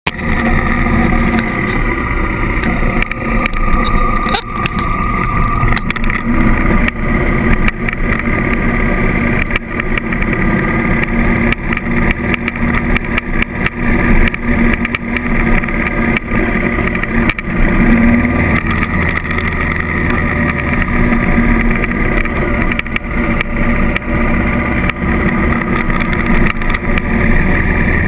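A Honda CRF1000L Africa Twin's parallel-twin engine running steadily as the bike rides a gravel road. Wind rushes over the bike-mounted microphone, and many short clicks and knocks come from the loose surface.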